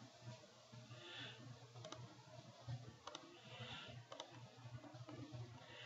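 Faint computer mouse clicks, a few spaced a second or so apart, while lines are trimmed in a CAD sketch. A faint steady low hum runs underneath.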